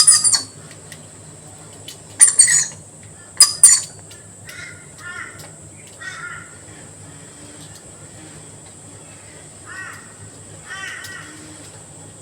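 Birds calling: three loud, harsh screeches within the first four seconds, followed by softer, shorter chirping calls scattered through the rest.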